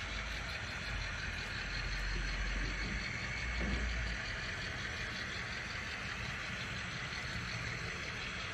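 Model train hopper wagons rolling past on the track: a steady running noise with a low rumble that eases after about four seconds.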